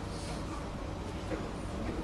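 Steady low rumble and hum inside a Singapore MRT train carriage as the train runs.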